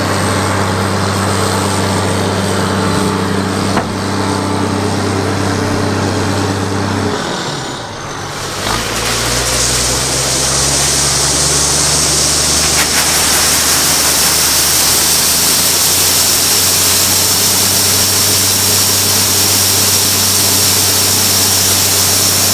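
A modern combine's engine running steadily. About eight seconds in, the note dips and changes, and a steady rushing hiss joins it as the unloading auger runs and soybeans pour into the grain truck's box.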